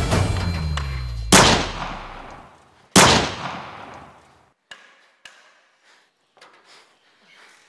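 Two gunshots about a second and a half apart, each followed by a long echoing decay. Soundtrack music cuts off at the first shot, and a few faint knocks follow.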